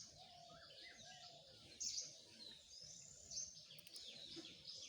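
Faint birds chirping in the background: many short, high, falling chirps, with a slightly louder one about two seconds in and another past three seconds, over near silence.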